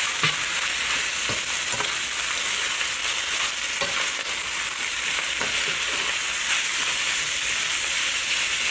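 Chinese kale, pork and egg sizzling in hot oil in a nonstick wok while being stir-fried, a steady hiss with soft scrapes and taps of a slotted spatula against the pan every second or so.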